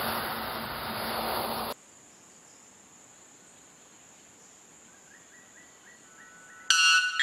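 A coiled snake hissing steadily, cut off abruptly about a second and a half in. Then a white bellbird gives a short run of soft stepped notes, and near the end a sudden, very loud ringing call with many overtones, over a steady high insect whine.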